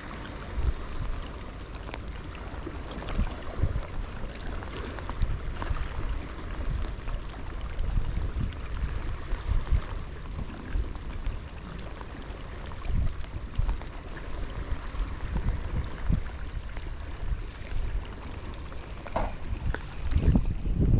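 Wind gusting against the microphone, with sea water washing in the background.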